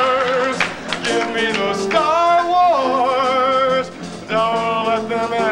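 A man singing long held notes with a wide vibrato into a microphone, over instrumental backing; the singing breaks off briefly about four seconds in.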